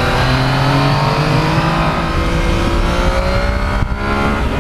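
Yamaha MT-09 three-cylinder motorcycle engine pulling under acceleration, its pitch climbing steadily through the quiet aftermarket exhaust, with a brief break about four seconds in as it shifts up a gear.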